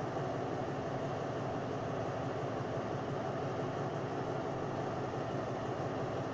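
Diesel-electric locomotive of a Thai passenger train idling at a standstill: a steady, even engine hum with no change in pitch or level.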